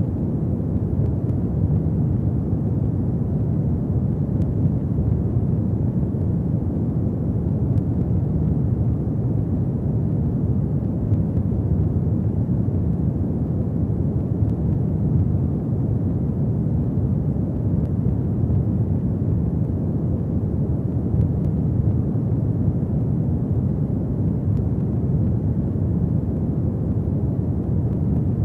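Log fire burning steadily: a low, even rumble of flames with a few faint crackles scattered through it.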